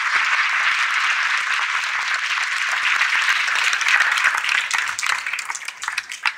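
Large audience applauding: dense, steady clapping that thins out to scattered single claps near the end.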